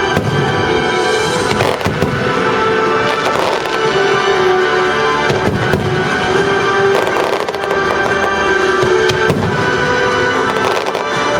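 Fireworks bursting and crackling again and again over loud orchestral music.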